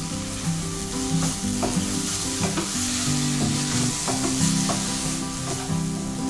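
Prawn kheema with fresh coriander sizzling as it is stirred with a plastic spatula in a nonstick kadhai, with irregular scrapes and taps of the spatula over a steady sizzle.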